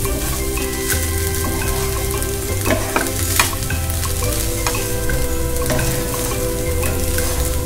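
A spatula stirring and turning steamed poha (flattened rice) in a steel kadai, scraping across the pan over a steady frying sizzle. A few sharper clicks of the spatula against the pan come about three seconds in.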